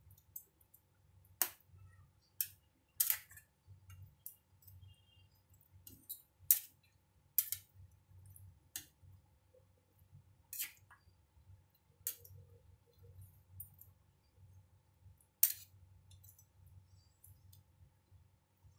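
Spatula knocking and scraping against a cooking pan while chicken pieces in a thick creamy gravy are stirred: irregular sharp clicks, two of them louder, about six and a half and fifteen and a half seconds in.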